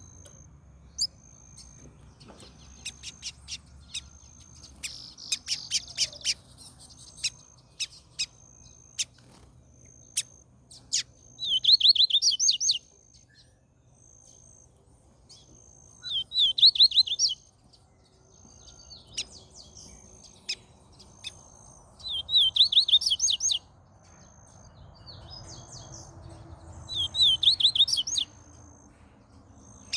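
Double-collared seedeater (coleiro) singing: four short, fast warbled phrases several seconds apart, with sharp single chip notes scattered between them.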